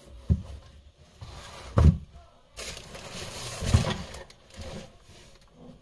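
Handling noise from a leather high-top sneaker being turned in the hands and set down on a table: three dull knocks and a stretch of rustling and scuffing in the middle.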